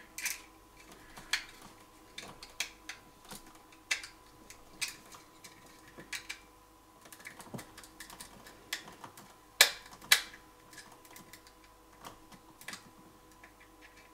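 Small screwdriver turning and tightening the terminal screws of a Sonoff T0 Wi-Fi wall switch, making irregular light clicks and ticks on the screws and plastic housing, with two sharper clicks about ten seconds in.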